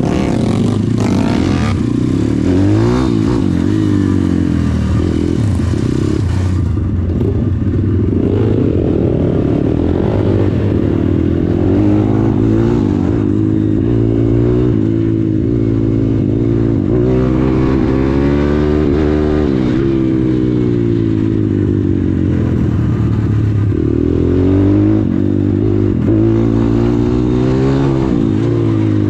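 Four-stroke single-cylinder pit bike engine under way, revving up and falling back again and again as it pulls through the gears.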